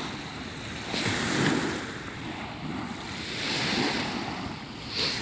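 Outdoor rushing noise that swells and eases every couple of seconds, louder about a second in and again later.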